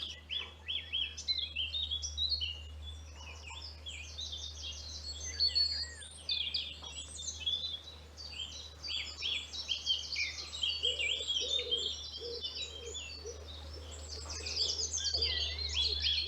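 Several songbirds singing at once, a dense chorus of chirps and trills with no break, joined in the second half by a lower, evenly repeated call.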